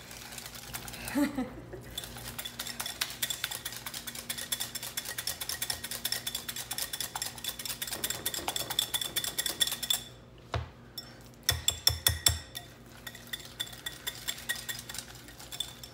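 Wire whisk beating freshly emulsified mayonnaise in a glass bowl: a fast, steady run of clicks as the wires strike the glass. It stops about ten seconds in, followed by a few louder clinks against the bowl.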